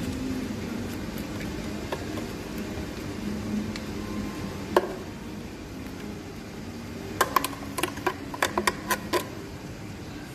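Spoon knocking against a plastic blender jar while thick blended ice frappe is scraped out into a cup: a single sharp tap about halfway, then a quick run of about ten knocks near the end. A steady low hum runs underneath.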